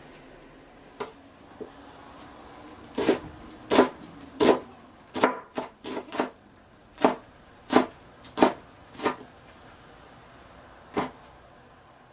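Chef's knife chopping green onion on a plastic cutting board: a series of sharp, irregular knocks, most of them between about three and nine seconds in, with one more near the end.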